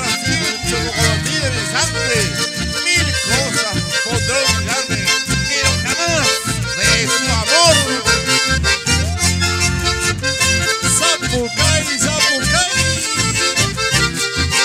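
Live band music led by a button accordion, with acoustic guitar and a steady, pulsing bass beat.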